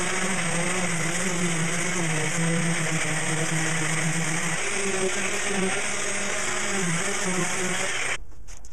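Power sander with a dust-extraction vacuum hose running steadily while sanding the filler on a fiberglass car hard top, with a wavering motor hum under a steady rush of noise. It cuts off abruptly about 8 seconds in.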